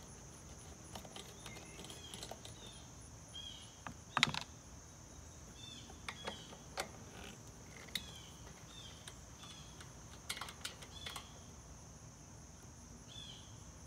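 Scattered small metallic clicks and taps as a 10 mm nut driver backs off the nuts holding the air cleaner housing on a 17 hp Kawasaki engine, with one louder knock about four seconds in. A steady high-pitched hiss runs underneath.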